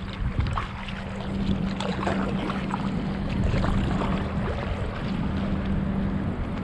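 Stand-up paddleboard paddle dipping and splashing through lake water, a cluster of splashes in the first few seconds, over a steady low hum.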